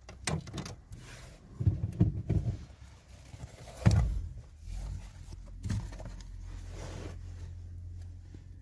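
Irregular thumps and knocks from someone moving about in a car's cabin and reaching under the dashboard, the loudest about four seconds in. A low steady hum sets in about halfway through.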